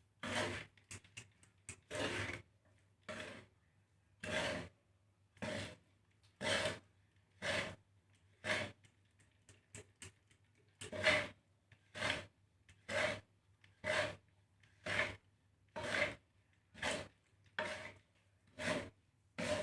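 A spatula stirring and scraping dry millet and rice seed through a roasting pan, one rasping stroke about every second.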